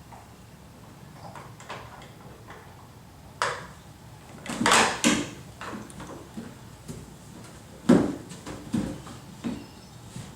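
Scattered knocks and bumps from objects being handled against household furniture, with the loudest cluster about halfway through and several more near the end.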